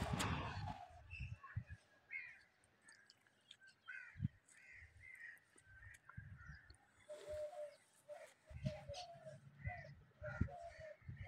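Birds calling in a string of short calls, higher ones in the first half and a run of lower, repeated calls through the second half, over low thuds and rustling, loudest right at the start.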